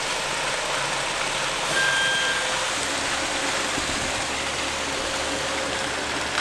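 An engine running steadily, with a short high tone about two seconds in.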